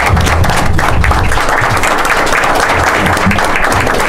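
Applause from a small crowd: many people clapping steadily together.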